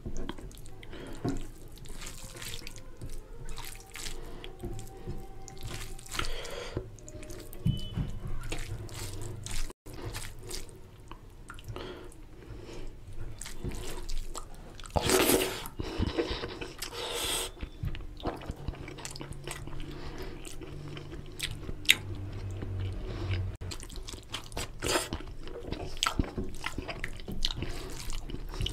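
Close-up wet eating sounds: fingers squishing rice into oily mutton curry, with chewing and lip smacks. Many short wet clicks throughout, with a louder noisy burst about fifteen seconds in.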